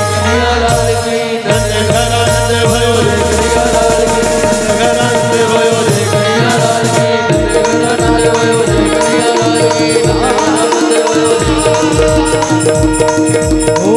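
Instrumental break in a Krishna bhajan, without singing: a steady hand-drum beat under sustained melody tones.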